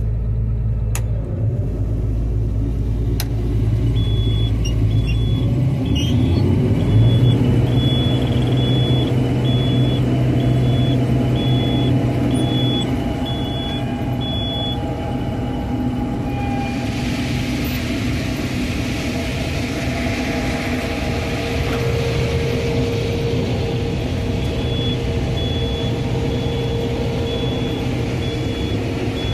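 Combine harvester running steadily in the field, its engine rising in pitch a few seconds in. A high beep repeats about once a second, stops about halfway through and starts again near the end. A hiss joins in from about halfway.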